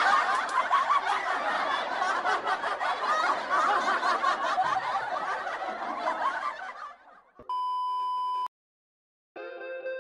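Laughter, most likely an added laugh track, dying away about seven seconds in. It is followed by a single steady beep lasting about a second, and near the end an outro jingle begins.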